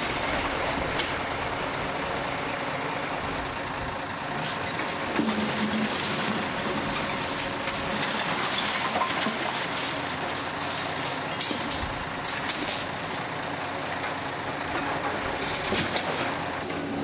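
Heavy diesel construction machinery running steadily, with a few brief sharp knocks.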